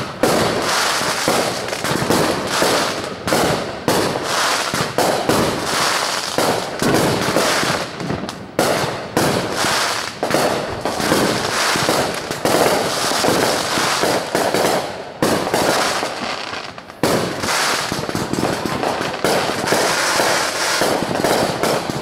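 Distant fireworks going off in a dense, continuous barrage of overlapping bangs and crackles.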